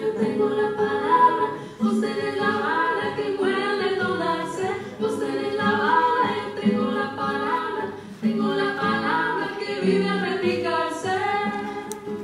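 Two women singing full-voiced in harmony to a strummed acoustic guitar.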